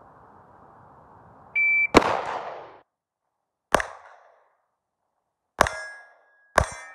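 A shot timer's high start beep, then four 9mm shots from a Glock 34 MOS Gen5 pistol, fired one at a time a second or two apart. The last two shots are each followed by a short ringing tone.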